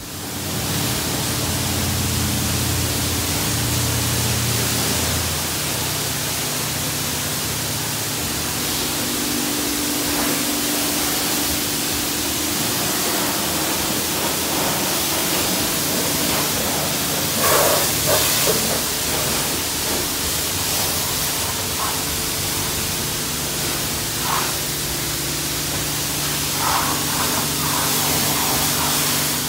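High-pressure car-wash wand spraying water onto a van's side panels: a loud, steady hiss with a low hum underneath. It briefly gets louder twice, in the middle and near the end.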